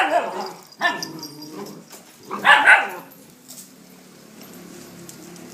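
Dogs barking in a pack of many dogs: loud barks near the start, about a second in and about two and a half seconds in, then quieter sound for the last two seconds.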